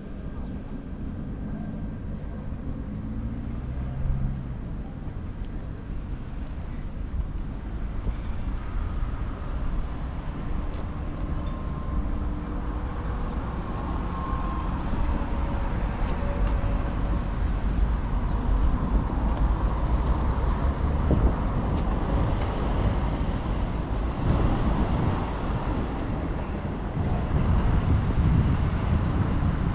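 Vehicle rumble in a city street, growing louder over the second half, with a few faint steady tones near the middle.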